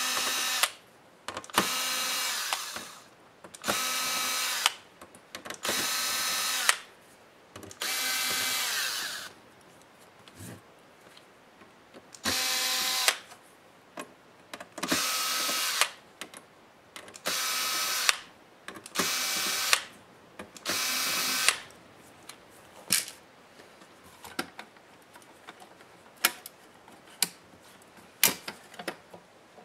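Cordless drill-driver spinning in about ten short bursts of roughly a second each, backing out the small hinge screws of a laptop's display lid. Scattered light clicks follow in the last third.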